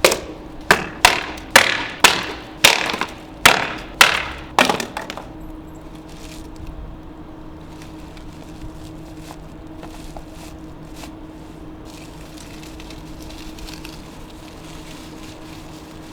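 About eight sharp knocks or impacts in quick succession, roughly two a second, then a faint steady hum with a few soft clicks.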